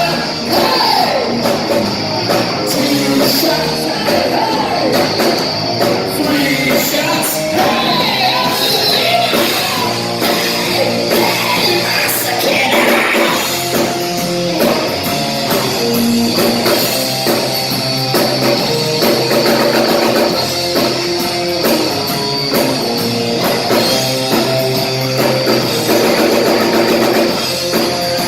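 A rock band playing live, with electric guitar, drums and singing.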